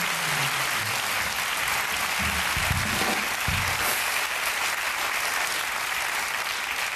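Studio audience applauding steadily, with some low band music under the applause in the first few seconds.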